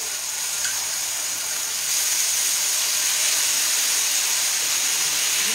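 Pea cream hitting a hot pan of crisp-fried guanciale and its rendered fat, sizzling steadily; the sizzle grows louder about two seconds in.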